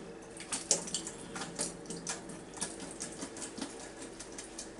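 Liquid from an opened can of tuna trickling and dripping into a kitchen sink as the can is tipped up to drain, with a scatter of faint irregular ticks and small splashes.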